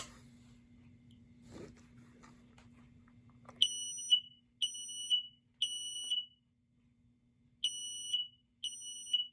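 Smoke alarm sounding its test tone after the test button is pressed: high beeps in the code-3 (temporal-three) pattern, three beeps, a pause, then the next set starting. The alarm sounding shows the new battery is now in correctly.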